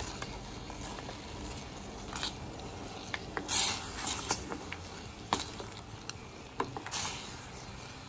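Brown-sugar syrup bubbling at a boil in a steel pot, with a few short splashes and knocks as saba banana pieces are tipped in and stirred.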